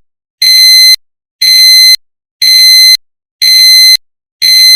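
Honda seatbelt reminder alarm: a loud electronic beep about half a second long, repeating about once a second. It signals that the engine is running with the seatbelt unfastened.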